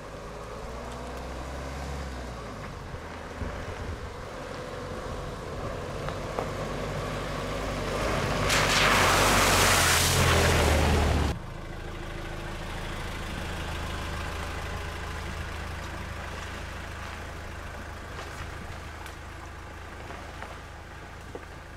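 Suzuki Grand Vitara's 1.9 DDiS turbodiesel engine running as the SUV comes closer on a gravel road, growing louder. About eight seconds in comes a loud splash of water as its tyres plough through a puddle, cut off suddenly after about three seconds. After that the engine and tyres run steadily and lower as it drives along a dirt track.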